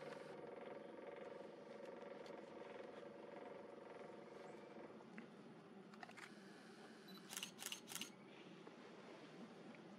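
Faint, steady hum of a camera's own lens motor, picked up by the camera's built-in microphone, fading after about five seconds. A quick run of three or four clicks comes about seven seconds in.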